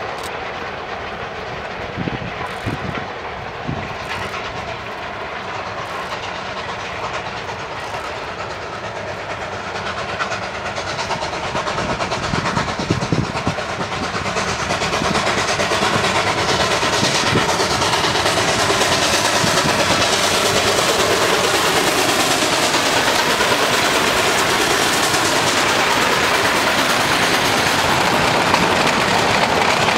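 Double-headed narrow-gauge steam train working upgrade, its locomotives growing louder as they approach and pass. A string of freight boxcars then rolls by with steady wheel clatter on the rails.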